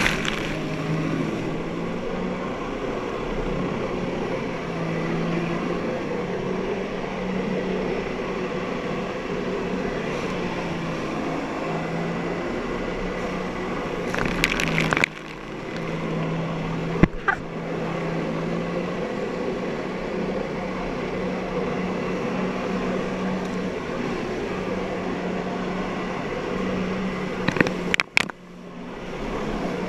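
Jet ski engine running steadily to drive a flyboard through its hose, with water spray hissing over it. About halfway through and again near the end, a few sharp cracks come just before the sound suddenly drops for a moment.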